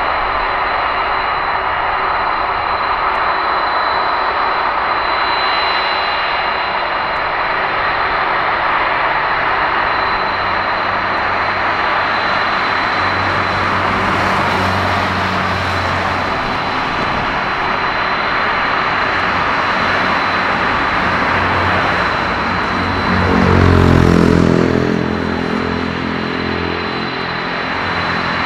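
A Boeing 747-400F's four jet engines running at taxi power as the freighter turns on the runway: a steady roar with a constant high whine. Near the end a deeper rumble swells for a couple of seconds, then settles.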